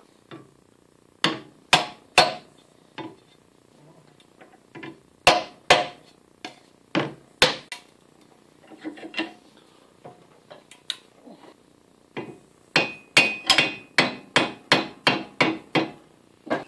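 Hammer blows driving a tight-fitting 3D-printed plastic handle down onto a popcorn scoop's shank clamped in a vise. A few scattered sharp taps come first, then a quicker run of about three taps a second near the end.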